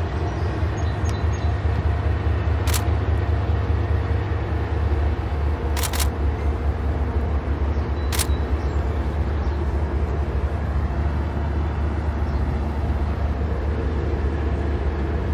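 Loaded freight train rolling by with a steady low rumble. Three sharp clicks cut through it, about three, six and eight seconds in.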